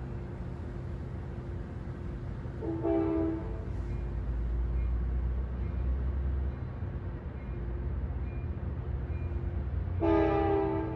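Sounder commuter train at a station: a low engine rumble, a short horn blast about three seconds in, and a longer blast of its multi-note horn starting near the end.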